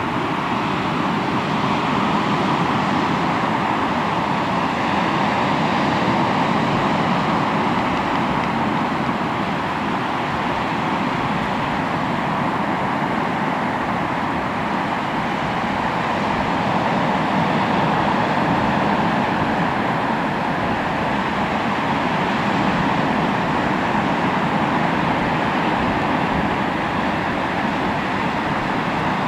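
Sea waves breaking and washing onto the shore: a continuous rush of surf that swells and eases slowly every several seconds.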